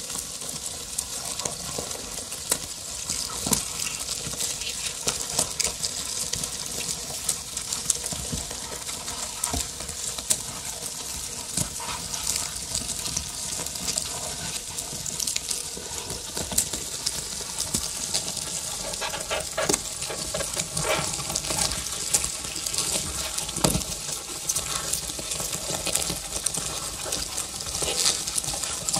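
Live electronic noise music played on a modular synthesizer rig: a dense, steady crackling hiss thick with scattered clicks and pops.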